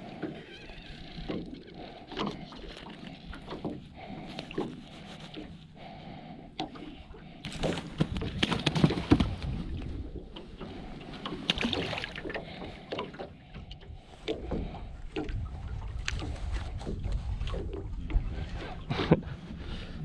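Scattered knocks, clicks and rustles of hands handling a fish and fishing tackle in a small boat, over a low rumble of wind on the microphone. The clatter is busiest from about eight to twelve seconds in.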